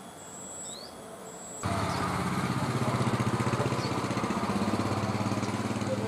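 Faint high bird chirps, then about a second and a half in a loud small engine cuts in abruptly and runs steadily with a fast, even pulse.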